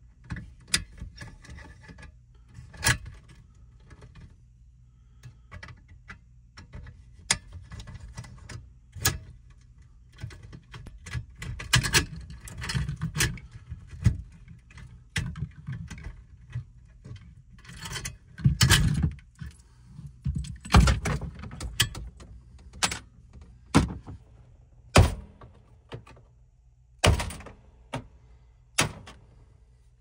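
Irregular metallic clicks, taps and clatter of hand work in a metal electrical disconnect box: a screwdriver on the terminals, wires being pushed and bent into place. A low steady hum runs underneath.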